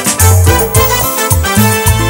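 Instrumental cumbia backing track: a rhythmic bass line and percussion under sustained melodic instruments, with no vocal.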